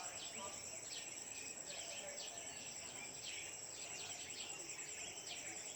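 Dawn insect chorus: a steady, high, slightly pulsing cricket-like trill, with quick falling chirps repeating every fraction of a second.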